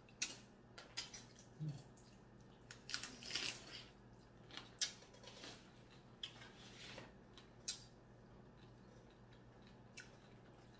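Blue crab shell being cracked and picked apart while eating: a scattered run of short cracks, crunches and clicks, sparser in the second half.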